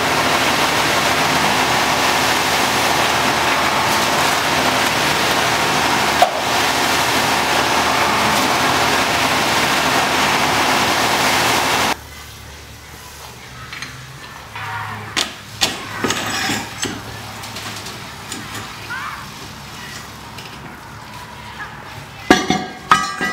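Concrete mixer truck engine running steadily and loudly for about twelve seconds, then stopping abruptly. Quieter scraping and knocking of a wooden screed board being worked across wet concrete around the shelter's steel hatch follows, louder near the end.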